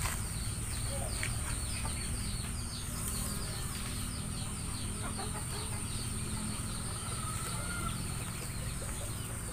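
Backyard chickens clucking, with a rapid run of short high chirps through the first half and a steady high-pitched whine underneath.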